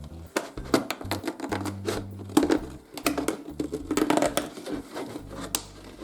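Thin plastic water bottle crackling and crinkling as a hole is cut into its side, a run of irregular sharp clicks and snaps.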